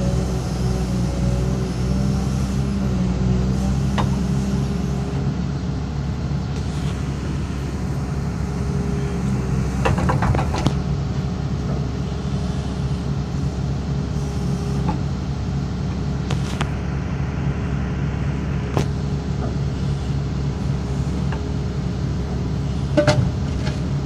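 Excavator diesel engine running steadily, heard from inside the cab, with a few scattered clicks and knocks. There are no repeating blows from the hydraulic breaker hammer, which fails to fire because its nitrogen charge is too high.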